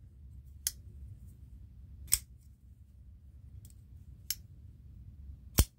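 YF Smart folding utility knife's blade being snapped open and closed by hand: four sharp clicks over a few seconds, the last the loudest.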